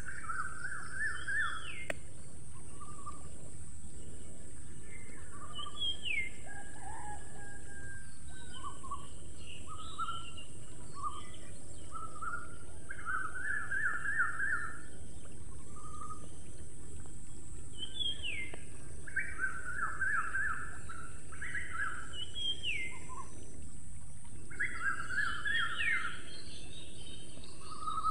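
Wild birds calling: short, rapid trills repeated every few seconds, with brief higher whistled slurs in between, over a steady hiss of outdoor ambience.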